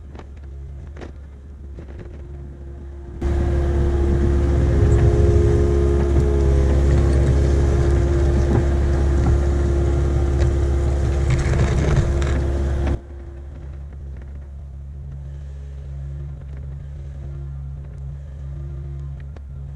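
Kubota KX057-5 mini excavator's diesel engine running steadily. From about three seconds in, a much louder stretch of about ten seconds begins and cuts off abruptly.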